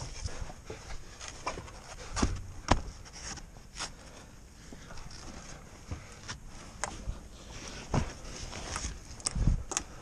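Irregular knocks, taps and scrapes of boots and gloved hands on a weathered wooden lattice and wooden shingles during a climb, with clothing rustling against the wood.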